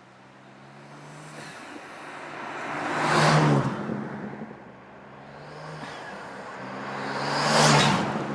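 BMW G87 M2's S58 twin-turbo straight-six, breathing through a Ramair Pro-Ram intake, driving past twice: each pass swells to a loud peak, about three seconds in and again near the end, then fades, the engine note dropping slightly as the car goes by.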